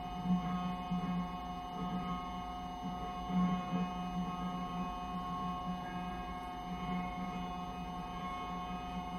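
Sustained electroacoustic drone from amplified cello and live electronics: several steady tones held together, with a low tone that swells and fades unevenly.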